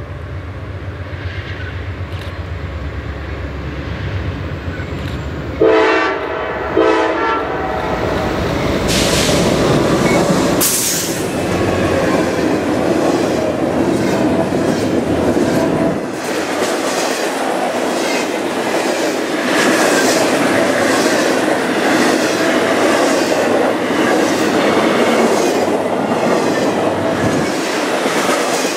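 CSX diesel freight train approaching with a building low rumble. About six seconds in, the locomotive horn gives two short blasts as a salute. The locomotives pass, then double-stack intermodal cars roll by at speed with a loud, rhythmic clatter of wheels over the rail joints.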